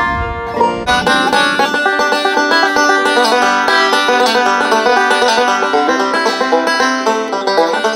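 1929 Gibson TB-1 banjo, with a Frank Neat neck and a Jerry Sloan no-hole tone ring, played fingerstyle with thumb and finger picks: fast, continuous rolls of bright plucked notes. In the first second there is a short low rumble while the high notes briefly drop out.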